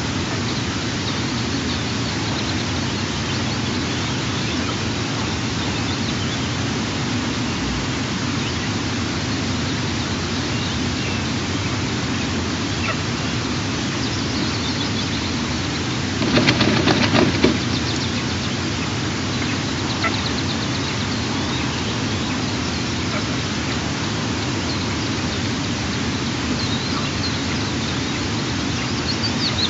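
Steady hiss of wind on the nest camera's outdoor microphone, with a few faint high chirps. About 16 seconds in comes a louder rustling stretch lasting a second or two.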